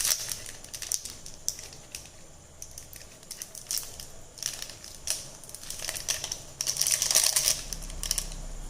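Plastic instant-noodle seasoning packets crinkling and rustling in hand, in several short bouts, the longest near the end.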